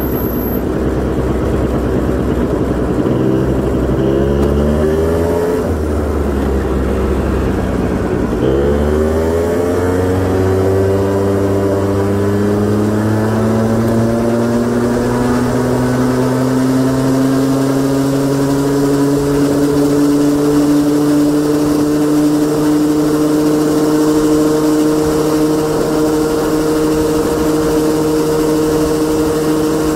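Engine of a late-model Honda Gyro X (TD01) scooter, a two-stroke, running under way. Its revs rise and dip in the first several seconds, then climb gradually from about eight seconds in and level off, holding steady through the second half.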